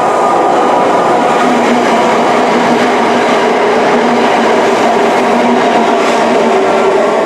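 Diesel passenger train running close by: a loud, steady rail noise with a few held engine tones running through it.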